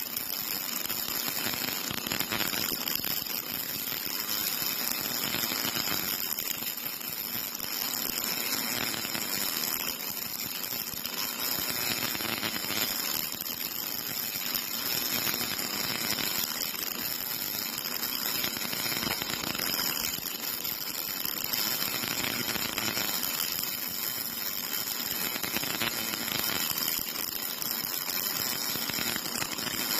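MIG welding arc crackling and sizzling steadily as a robot-held torch runs a vertical seam on a steel box section, throwing spatter.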